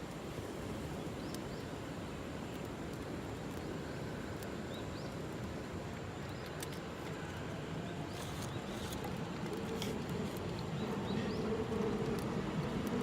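Steady rushing of the river with a few short bird chirps, and a train coming closer near the end, its steady hum growing louder.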